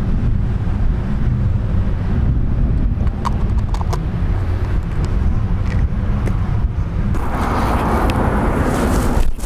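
Low rumble of wind buffeting the microphone, with a few small clicks as a plastic bait jar lid is handled. About seven seconds in a louder rush of noise comes as the fishing rod is swung into a cast.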